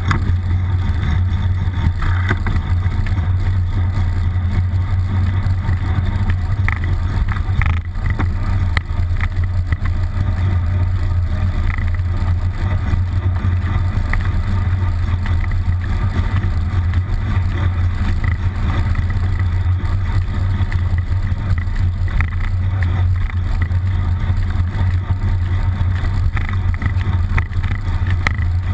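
Steady low rumble of a bicycle being ridden on a paved road, heard through a GoPro HERO-960 mounted on the bike: road vibration and wind noise on the camera housing. A single short knock comes about eight seconds in.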